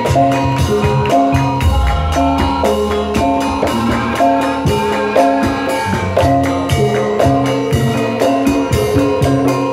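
Live Javanese gamelan-style instrumental music: a melody of struck, ringing notes moving in steps over a steady beat of hand drums and jingling percussion.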